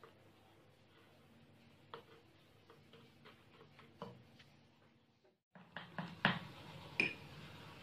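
Metal spoon tapping and clinking against the mouth of a bottle as baking soda is spooned in, a string of light scattered clicks. After a short break about five and a half seconds in, a few louder clinks follow.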